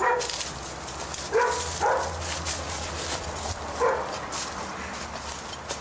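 A dog barking: four short barks, two close together in the middle and one near the end, over the rustle of brush and roots being pushed through.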